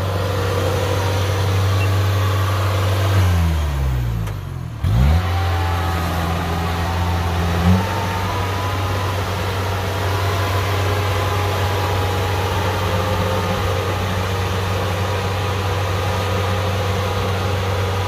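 Kubota DC-60 combine harvester's engine running with a steady low hum. About three seconds in, its pitch falls sharply and breaks off briefly, then it picks up again and runs steadily.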